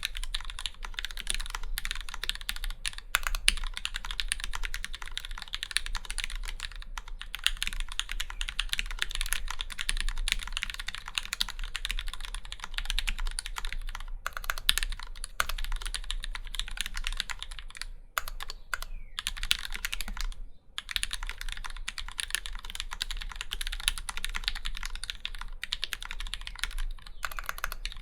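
Fast continuous typing on an acrylic-cased, acrylic-plate Alice-layout mechanical keyboard with Krytox-lubed Gateron Black Ink linear switches and GMK keycaps, the keystrokes running together in a dense stream, broken by two very short pauses about two thirds of the way through.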